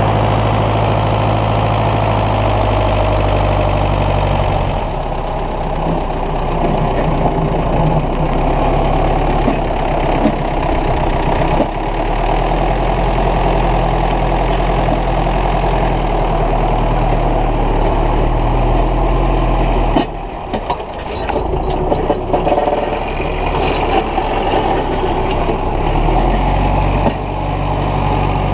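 Ursus 914 tractor's diesel engine running steadily. Its note shifts about five seconds in. Around twenty seconds in it dips briefly, with a few sharp clicks.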